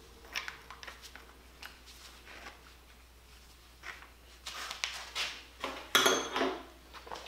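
Small metal clicks and clinks as a flux-core welding gun is handled at its nozzle end. From about four and a half seconds in they grow into louder clatter and scraping, loudest around six seconds.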